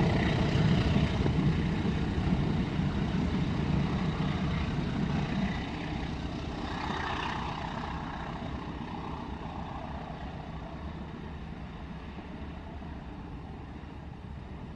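A train passing over a level crossing and moving away. A heavy low rumble drops off about five seconds in, then the sound fades steadily.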